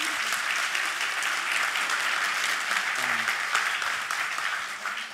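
Audience applauding at the close of a talk, a dense steady clapping that begins to die away near the end.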